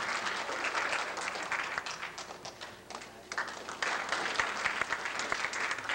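Audience applauding. The clapping thins out a little before halfway, then swells again just past the middle.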